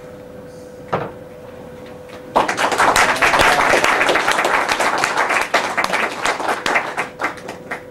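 A small group of people applauding. A single clap comes about a second in, then a burst of applause starts about two and a half seconds in and thins out into a few scattered claps near the end.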